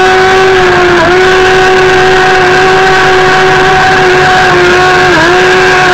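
Motor of a radio-controlled boat, heard from a camera riding on the boat, running at a steady high whine over a hiss of water and wind. The pitch dips briefly about a second in and again near the end.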